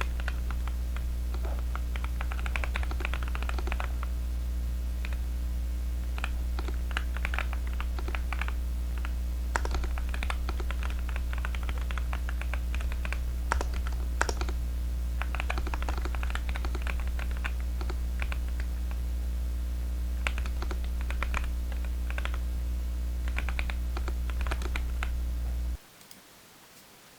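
Typing on a fully foamed Zoom75 custom mechanical keyboard with Kailh Heavy Burnt Orange tactile switches: irregular runs of short key clicks. A steady low electrical hum runs underneath and cuts off suddenly about a second and a half before the end.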